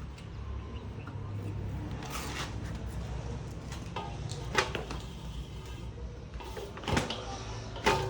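Animal feed grinder running with a steady low motor hum, with several sharp knocks and clatters over it.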